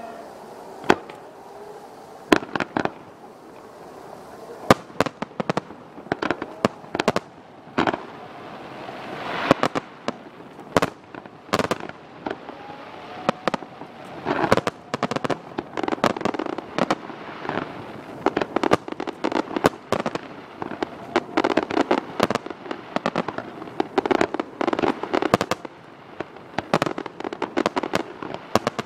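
Aerial fireworks bursting: a few single bangs spaced seconds apart at first, then rapid runs of bangs packed close together from about halfway through.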